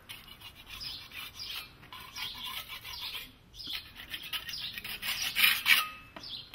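Metal hand scraper scratching dirt off whitewashed stone steps in a series of short, rasping strokes, with a brief pause midway and the loudest strokes about five and a half seconds in.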